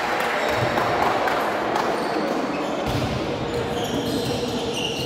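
Volleyball being played in a gym: scattered ball hits and bounces over a steady background of voices in the hall.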